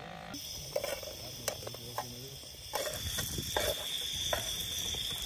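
A cricket trilling steadily from about halfway in. Over it come light, irregular knocks as pieces of sausage are dropped into a metal pot.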